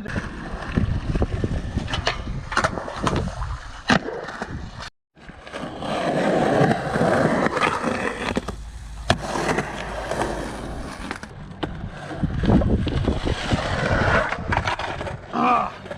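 Skateboard wheels rolling over rough, cracked concrete, a steady rumble broken by several sharp clacks of the board. The sound drops out for a moment about five seconds in.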